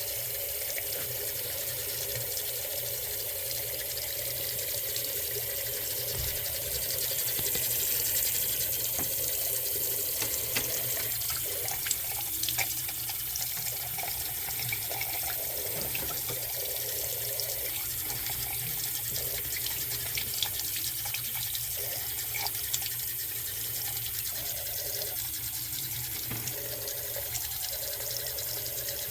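Faucet running steadily into a sink, with a few faint clicks now and then.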